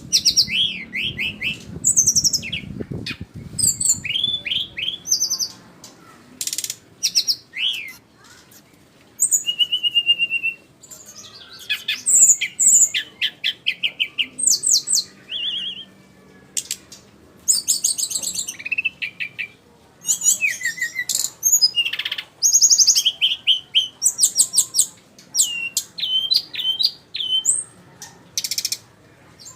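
Jungle flycatcher (sikatan rimba) singing: a long string of short, high phrases of rapid trills and quick whistled notes, with brief pauses between them.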